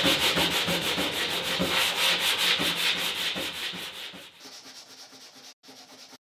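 Sandpaper on a hand sanding block rubbed in quick back-and-forth strokes over a fiberglassed marine-plywood panel, flattening the cured glass and epoxy at its edge. The strokes get much quieter about four seconds in.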